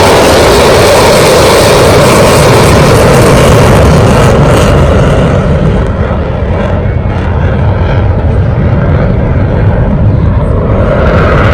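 Metal lathe running while its tool takes a turning cut along a plastic workpiece: a loud, steady machine noise with a hiss on top. The hiss fades about halfway through while the machine keeps running.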